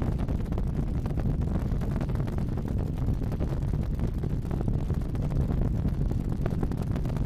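Steady low rumble of the SLS rocket's four RS-25 engines and twin solid rocket boosters firing during ascent, played back at 1.5x speed.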